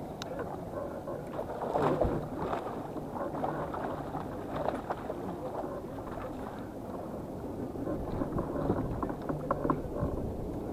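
Steady rushing noise of water and wind around a fishing kayak, with scattered small knocks and clicks from gear on the hull; the strongest knocks come about two seconds in and near the end.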